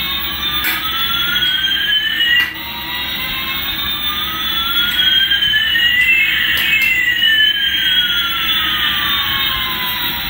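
Battery-operated toy Airbus A380 playing its electronic jet-engine sound effect: a synthetic whine that sweeps slowly up and down in pitch, two tones gliding past each other, with a few sharp clicks.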